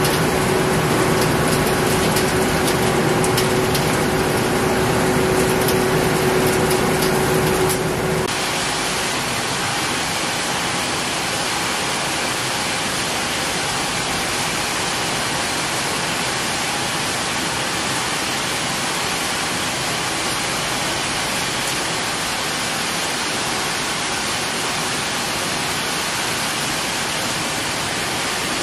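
Machinery on a battery recycling line running: a steady hum with crackling for about eight seconds, then an abrupt change to a steady rushing noise, like shredded material pouring.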